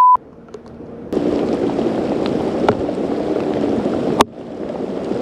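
A censor bleep, a steady tone, ends just after the start. From about a second in there is a steady rushing noise of heavy rain and wind on the open boat. It cuts off abruptly about four seconds in, then builds again more quietly.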